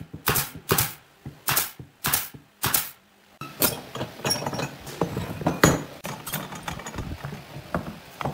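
Woodworking at the bench: five short, sharp bursts about half a second apart, then after a brief pause a busy run of lighter knocks and clicks of wooden parts being handled.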